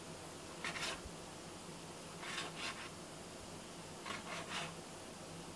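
Chef's knife cutting on a plastic cutting mat: three faint clusters of quick scraping cuts, two or three strokes each, spaced about a second and a half apart.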